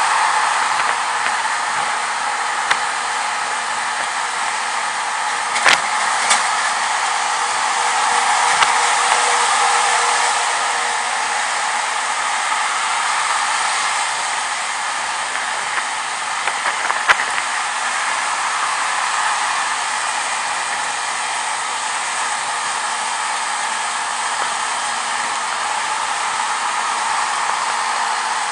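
Steady rushing wind and road noise on an onboard camera's microphone while the vehicle is moving, with a faint engine hum under it and a few brief clicks.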